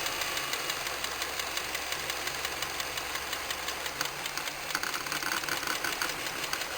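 Honda K20A inline-four idling with a rapid, steady knock. The knock keeps going while injectors are unplugged one at a time, so cutting fuel to a cylinder does not silence it.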